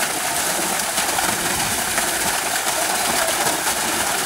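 Waterfall's steady rush of falling water, an even hiss with no breaks.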